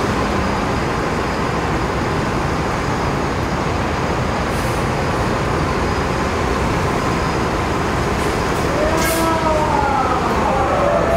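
Steady street traffic noise, with a city bus and trucks passing close. About nine seconds in, a series of short falling high-pitched sweeps joins it.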